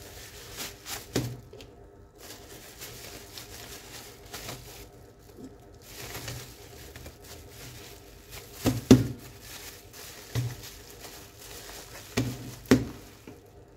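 Plastic bubble wrap and a plastic bag crinkling and rustling as gloved hands handle a wrapped part, with several sharp knocks, two close pairs of them in the second half.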